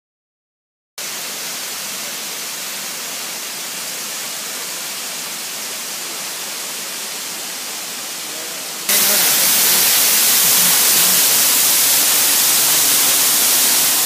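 Steady rush of a tall waterfall, starting about a second in and jumping sharply louder and hissier about nine seconds in, close beside the falling water.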